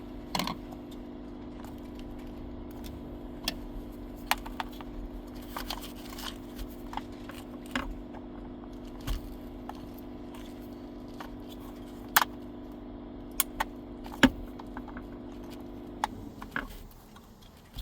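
Small clicks, taps and light rattles of metal and plastic seatbelt parts being handled, over a steady hum that stops shortly before the end.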